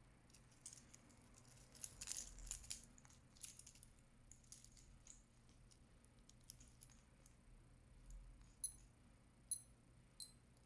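Faint handling clicks and rattles of a metal watch and its packaging. Near the end come three short, high electronic beeps, each under a second apart: the button beep of a Skmei 1335 digital watch.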